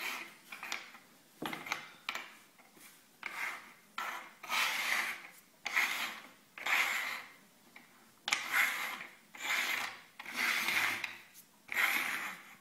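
Walnut shell halves being slid and shuffled across a wooden tabletop: a run of short, irregular scraping strokes, each lasting under a second.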